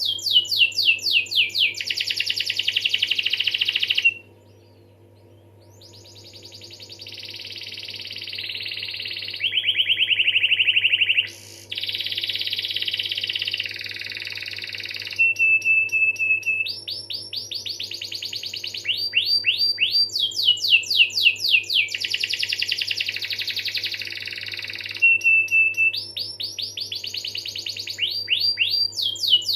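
Domestic canary singing a long rolling song: fast trills of rapid repeated downward-sweeping notes, buzzy rolls and a few short held whistles, with a brief pause about four seconds in. A faint steady low hum runs underneath.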